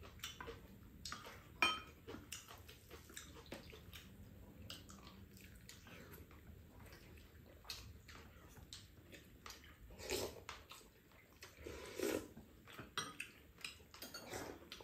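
Quiet table-eating sounds: metal spoons and chopsticks tapping and scraping on ceramic bowls in scattered small clicks, with soft sipping from spoons and two slightly louder sounds about ten and twelve seconds in.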